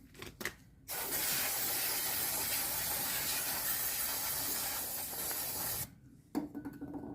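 Aerosol can of brake cleaner sprayed in one continuous hissing burst of about five seconds, starting about a second in and cutting off abruptly. A few light clicks come just before it.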